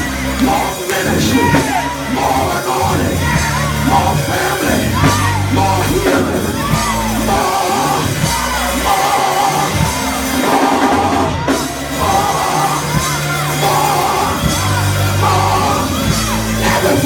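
A live church band of keyboard and drums playing a praise break, with a man's voice yelling and whooping over it through a microphone.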